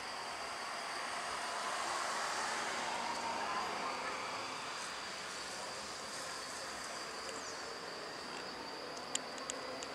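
Distant single-engine turboprop of a Cessna 208B Grand Caravan climbing away, a steady propeller-and-engine sound that swells slightly and then slowly fades. A steady high insect drone runs under it, and a few sharp clicks come near the end.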